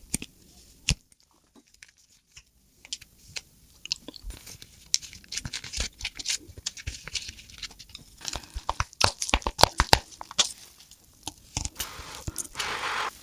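Close-miked eating sounds: irregular chewing, crunching and biting, with wet clicks and crackles that grow busier partway through and a thicker noisy stretch of about a second near the end.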